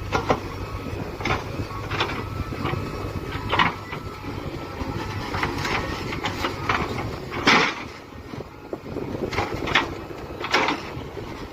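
Backhoe loader's diesel engine running steadily, with repeated sharp knocks and clanks about once a second, the loudest about seven and a half seconds in.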